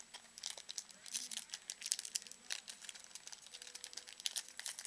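A stack of football trading cards being thumbed through by hand: a quick, irregular run of dry card flicks and rustles.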